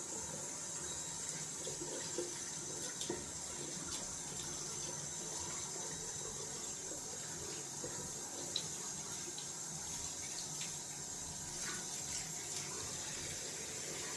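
Water tap running into a sink as a hand and a shaving-soap tub are rinsed under the stream, with a few small knocks of handling; the tap is shut off at the end.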